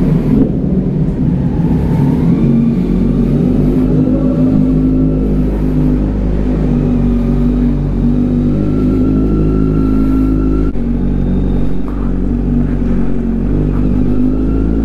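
Kawasaki Z900's inline-four engine running steadily at low revs while the motorcycle is ridden slowly, with small changes in pitch as the throttle is worked.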